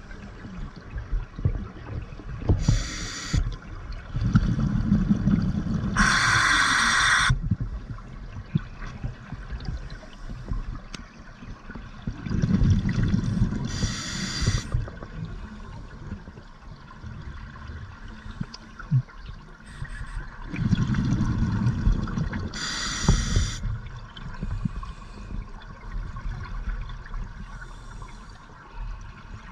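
Scuba diver breathing through a regulator underwater: a short hiss on each inhalation and a low rumbling burble of exhaled bubbles, repeating about every eight seconds.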